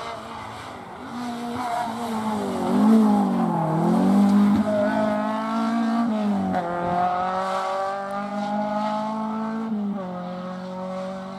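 Rally car engine driven hard, the revs dipping and recovering early on, then climbing and dropping sharply twice, about six and a half and ten seconds in, before climbing again. It is loudest about three seconds in.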